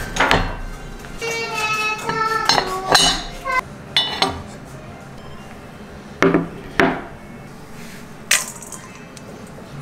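Kitchen utensils clinking: metal tongs tap a grill pan a couple of times, then a stainless steel bowl clinks and rings briefly. There are a few separate knocks in all.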